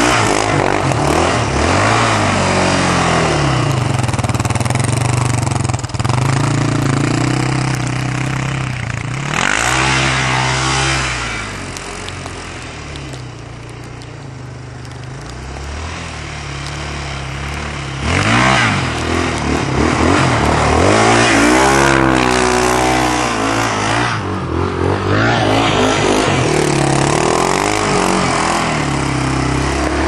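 Yamaha Raptor sport ATV's single-cylinder engine revving up and down as it is ridden through snow, with repeated surges of acceleration. It fades somewhat in the middle and comes back louder about 18 seconds in.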